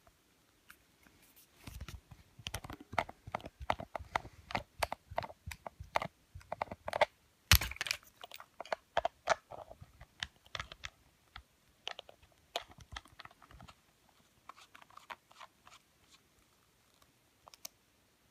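Small vape parts and plastic packaging being handled and rummaged through: a run of irregular clicks, taps and crinkles. It is busiest in the first two-thirds, with the loudest knock about seven and a half seconds in, and thins out to scattered clicks near the end.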